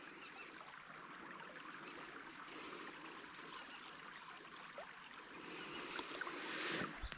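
Faint, steady flowing of a shallow river over stones, an even rippling hiss that swells slightly near the end.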